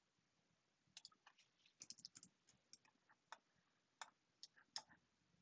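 Faint clicks of a computer mouse, about fifteen at uneven intervals, some in quick pairs, as points are picked in a CAD sketch.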